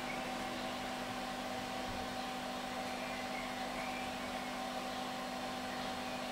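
Steady mechanical hum at an even level, like a fan or appliance running, with a constant low tone and a higher tone. A few faint short high chirps are heard in the middle.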